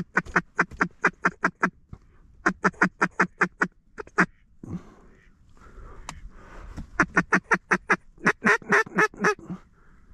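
Mallard duck call blown in three quick runs of hen-mallard quacks, about six quacks a second, the last run the longest. It is calling to ducks to bring them in over the decoy spread.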